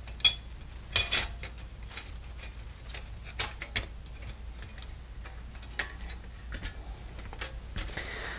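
Thin stainless steel panels of a folding wood-burning stove clicking and clinking against each other as they are handled and slotted together, in scattered light strikes, the sharpest in the first second or so.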